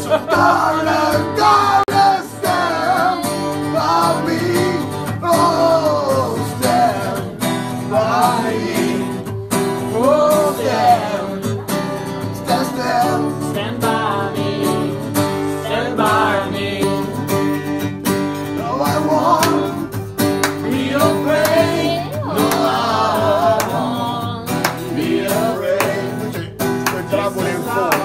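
Male voices singing an Italian song together, accompanied by a strummed acoustic guitar.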